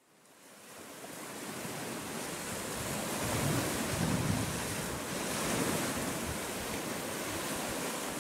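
Small waves washing onto a pebble beach, with wind buffeting the microphone in gusts, heaviest about three to four seconds in. The sound fades in over the first second.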